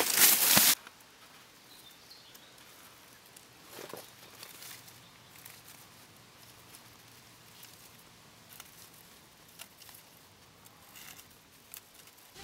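Loud rustling of rye stalks that cuts off abruptly under a second in. Then it is quiet, with faint scattered clicks and light rustles, the loudest of them about four seconds in.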